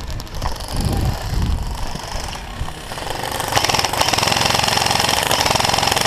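Running footsteps with low thumps, then from about three seconds in an airsoft electric rifle firing on full auto: a fast, steady mechanical rattle that runs on without a break.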